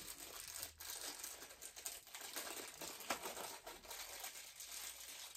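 Rustling and crinkling of items being rummaged through by hand, with scattered light knocks and one slightly louder knock about three seconds in.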